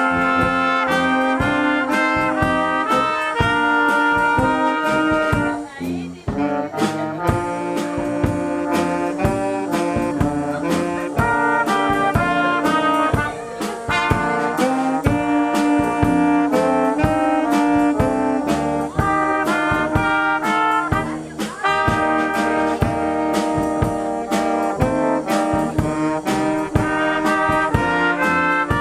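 Brass band music: horns playing a tune in chords over a steady, regular beat, with brief breaks between phrases.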